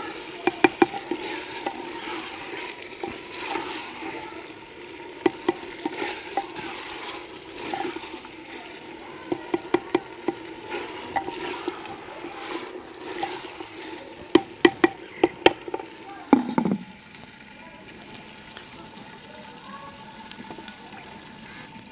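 Mutton frying in masala in a clay handi over a wood fire, sizzling steadily while a spatula stirs it, clinking and scraping against the pot in short bursts. About sixteen and a half seconds in there is a last scrape, and after that the sound drops to a fainter sizzle.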